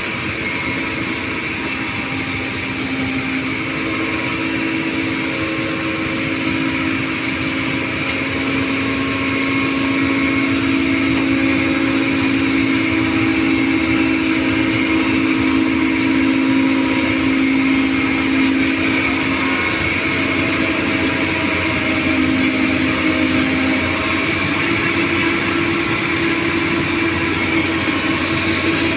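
Doosan 225 excavator running steadily at work, its diesel engine and hydraulics making a continuous droning hum. The hum's pitch steps up about three quarters of the way through.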